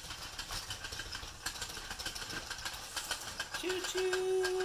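A battery-powered toy train running on its track, with a busy rattling, clicking chug from its motor and wheels. A little over halfway in, a steady held tone starts and lasts about a second and a half.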